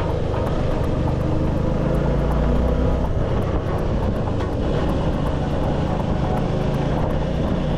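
Suzuki V-Strom motorcycle engine running steadily while riding.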